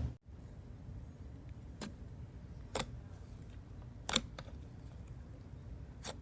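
Slime being handled: four short, faint clicks over low, steady background noise.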